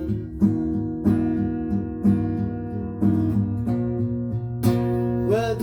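Acoustic guitar strumming chords in an instrumental gap of a song, a strum every second or so over held, ringing notes.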